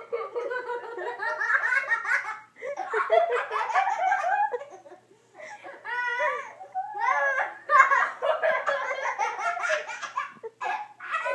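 Two young children laughing hard in repeated bursts of giggles, with short breaks about two and a half and five seconds in.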